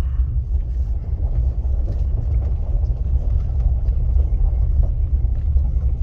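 Steady low rumble of a pickup truck's engine and tyres, heard from inside the cab as it drives slowly.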